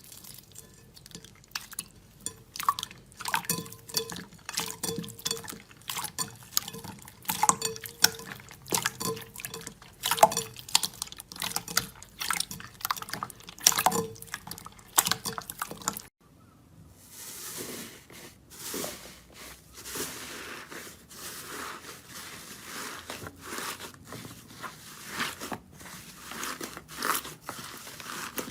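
Slime being squeezed and poked by hands, making quick wet pops and clicks. About halfway through it changes to a denser crackling, crunchy texture.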